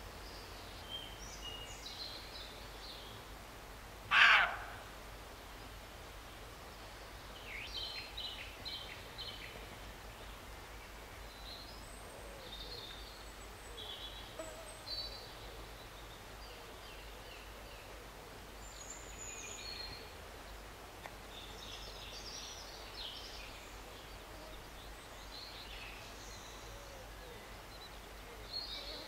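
A roe deer gives a single loud bark about four seconds in. Small birds call at intervals throughout.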